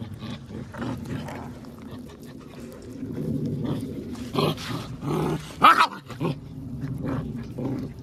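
Belgian Malinois puppies growling continuously as they chew and tug at a raw beef rib, with two short, louder outbursts in the middle, the loudest about five and a half seconds in.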